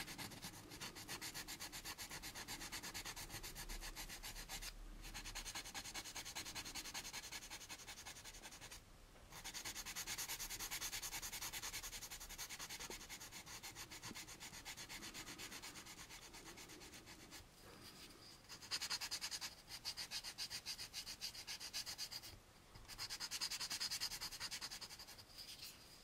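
Sandpaper on a hand sanding block rubbing over a small polystyrene model-kit part in quick back-and-forth strokes, cross sanding to flatten raised mold marks. The scraping stops briefly a few times.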